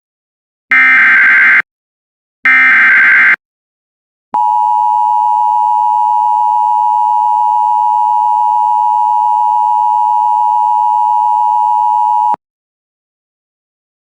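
Emergency Alert System alert signals: two short, identical digital data bursts of the SAME header, each just under a second long, and after a second's pause the steady two-tone EAS attention signal, held for about eight seconds before it cuts off sharply.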